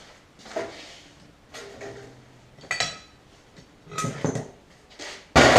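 Metal brake parts being picked up and set down on a workbench: a string of separate clinks and knocks about a second apart, some ringing briefly like struck metal, with a loud heavy clunk near the end.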